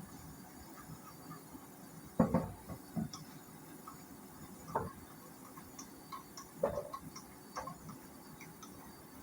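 Scattered light knocks and clatters of hard objects being handled, about five over several seconds, the loudest about two seconds in, with faint clicks between them.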